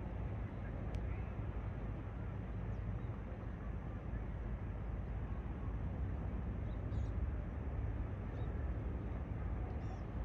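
Steady outdoor ambient rumble and hiss, heaviest in the low end, with a few faint high bird chirps scattered through it.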